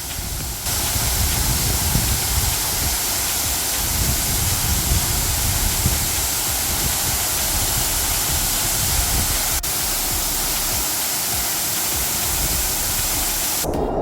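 Waterfall pouring: a loud, steady rush of falling water that steps up in loudness about half a second in.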